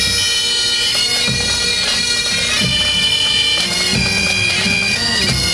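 Marching pipe band: Great Highland bagpipes playing a tune over their steady drones, with drum beats underneath.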